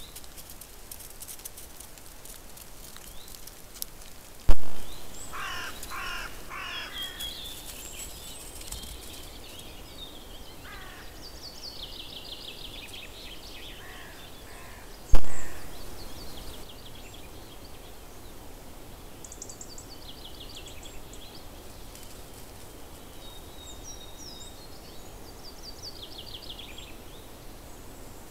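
Wild birds calling in woodland: a few louder, lower calls about five seconds in, and runs of rapid high notes from about eleven seconds on, over a steady hiss. Two sudden sharp clicks, the loudest sounds, come about ten seconds apart.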